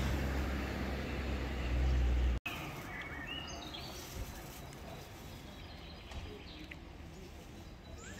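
A loud, steady low rumble that cuts off abruptly a little over two seconds in, then small birds chirping now and then over quiet outdoor background noise.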